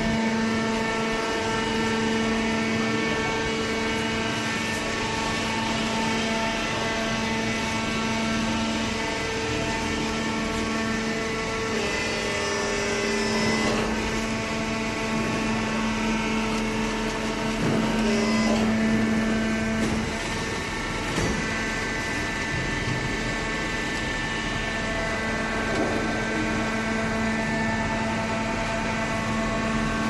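Hydraulic power unit of a waste paper baler running: a steady motor-and-pump hum made of several tones, shifting slightly in pitch around the middle, with a few faint knocks.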